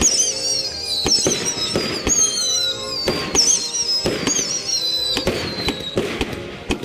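Consumer aerial fireworks going off in quick succession: sharp bangs of launches and bursts, with several wavering whistles that fall in pitch, over background music.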